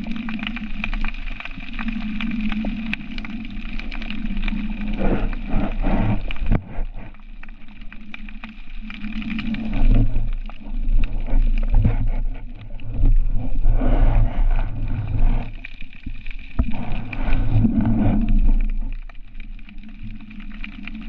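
Muffled underwater sound picked up by a camera in its housing: a low rumble of water movement under a steady hum, swelling louder several times as the diver moves.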